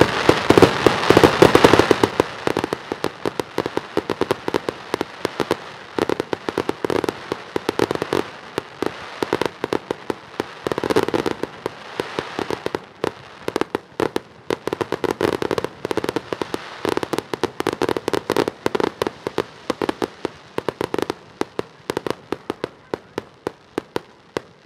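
Aerial firework shells bursting overhead in a rapid barrage of sharp bangs and crackling pops. The barrage is loudest in the first couple of seconds, comes in dense clusters in the middle, and thins out toward the end.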